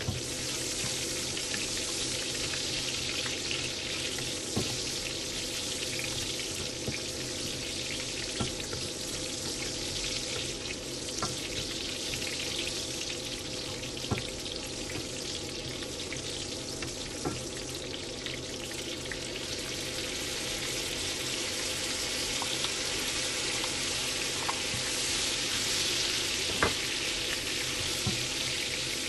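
Chopped garlic and onion sautéing in hot oil in a pan: a steady sizzle, a little stronger near the end, broken by a few sharp clicks.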